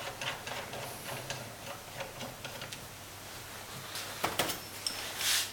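Light metallic clicks and ticks of a tool and parts being handled on a unit-injector clamping device while the injector's spring and element are taken out, with a few sharper metal clinks in the last second or so.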